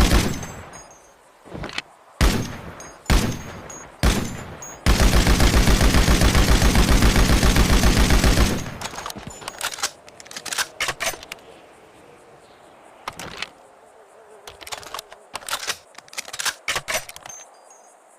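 Machine gun firing: four short bursts, then one long burst of rapid, evenly spaced shots lasting about three and a half seconds. After that come scattered, quieter single cracks.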